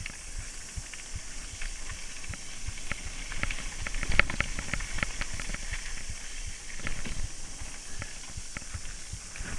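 Mountain bike riding fast down a dirt forest trail: a steady hiss of tyres on dirt and wind, with frequent rattling clicks and knocks from the bike going over bumps, the loudest about four seconds in.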